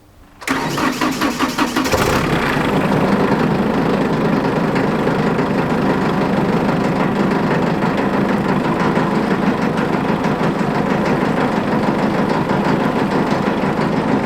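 JCB Midi CX backhoe's diesel engine being cranked by the starter for about a second and a half, catching about two seconds in, then running steadily at idle with a loud rattle that is the bucket shaking hard at the low idle speed.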